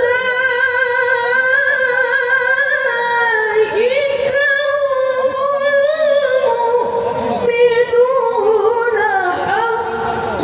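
A woman reciting the Qur'an in Arabic in the melodic tilawah style: long, ornamented held notes with a brief pause for breath a little under four seconds in, the melody stepping lower toward the end.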